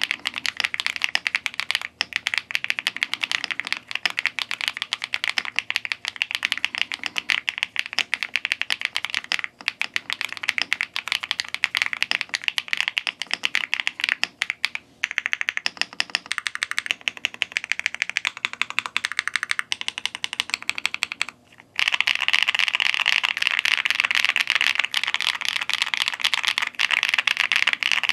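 Rapid continuous typing on a GMK67 65% gasket-mounted mechanical keyboard with pre-lubed Akko Mirror linear switches and no internal case foam, giving a stream of crisp keystroke clacks. About three-quarters of the way through the typing pauses for a moment, then resumes denser and brighter.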